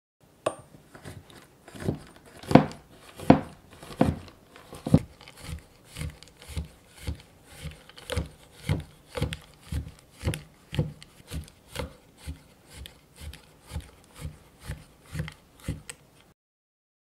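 Chef's knife chopping a bar of dark chocolate on a wooden cutting board: a steady run of knocks about two a second, the first few loudest, stopping near the end.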